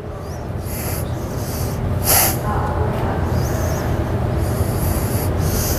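A weightlifter breathing hard through a set of barbell bench press reps: about six short hissing breaths, the one about two seconds in the loudest, over a steady low rumble.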